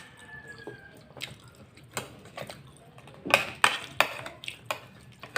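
Close-up eating sounds: sharp mouth clicks and smacks from chewing food, scattered at first and then coming quickly and more loudly between about three and five seconds in.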